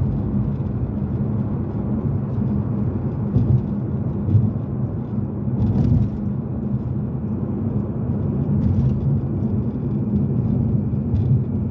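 Steady low rumble of a car being driven, heard from inside the cabin: engine and road noise, with a few faint ticks.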